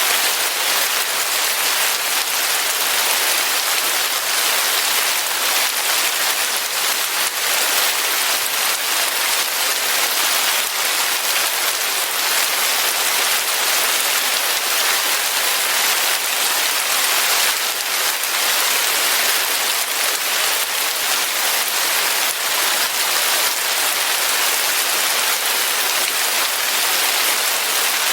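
Steady rain falling and pattering on surfaces, a constant even hiss with fine drop crackle throughout.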